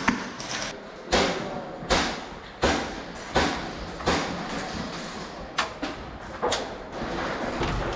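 Airsoft gun fired in single shots, a sharp crack about every three-quarters of a second, each with a short echo off the hard walls of a large empty hall.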